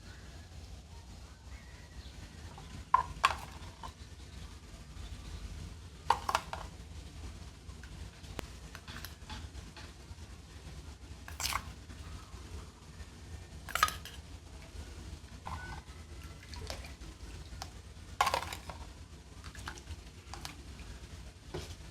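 Small metal parts clinking and being set down against metal or a hard surface: several sharp knocks spread out, each with a short metallic ring, over a steady low hum.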